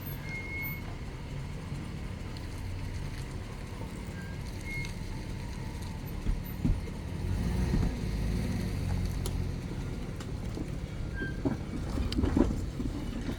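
Vehicle driving slowly, a steady low rumble of engine and tyres with a few knocks and jolts as it goes over a rough, broken driveway.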